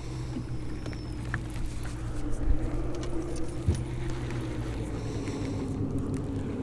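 Steady low hum of a boat's motor, with a couple of faint light clicks from a fishing reel being handled.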